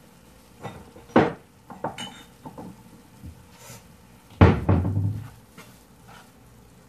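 Kitchen clatter at the stove: a few light knocks and taps, then one louder knock about four and a half seconds in that rings briefly.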